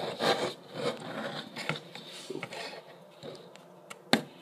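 Small Lego model vehicle handled and turned on a plastic Lego baseplate: irregular rubbing and scraping of plastic, with one sharp click about four seconds in.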